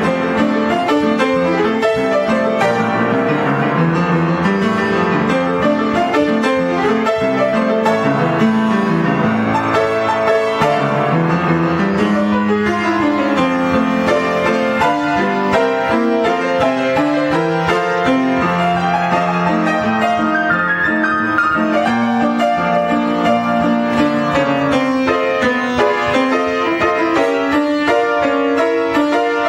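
Upright piano playing ragtime solo, a steady, unbroken run of notes.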